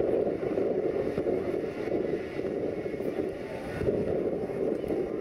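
Shockwave jet truck's three jet engines running with afterburners lit, heard from a distance as a steady rushing noise, with a sharp pop about four seconds in as a fireball goes off.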